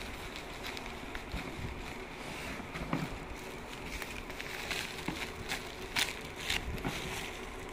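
Clear plastic wrapping crinkling and rustling as it is pulled off a cardboard box, with a burst of sharper crackles about three seconds in and a cluster more in the second half, over a steady background hiss.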